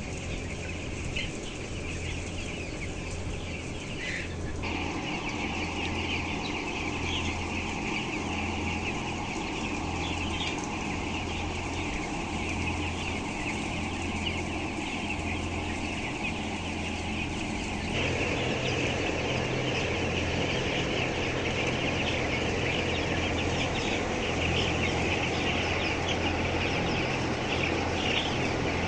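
A flock of broiler chickens calling continuously, many birds cheeping and clucking at once, over a low steady hum. The chatter grows louder about four seconds in and again past the halfway point.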